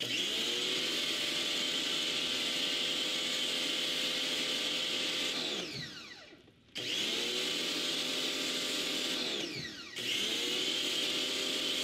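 Electric pressure washer's motor and pump running under load while spraying soap through the soap applicator. Twice the motor winds down with a falling whine, about halfway through and again near the end, then starts abruptly back to full speed: the pump shutting off and restarting as the trigger is let go and pulled again.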